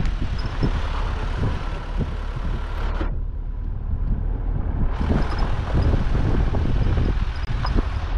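Motor vehicle driving: a steady low rumble with frequent knocks and rattles. The higher hiss drops away for about two seconds midway.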